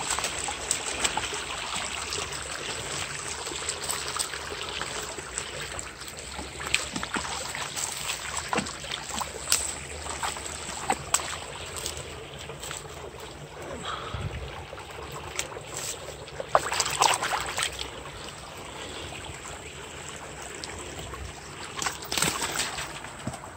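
A small forest brook trickling over stones, a steady wash of water sound. A few short, sharp clicks and knocks break in now and then, the loudest cluster about two-thirds of the way through.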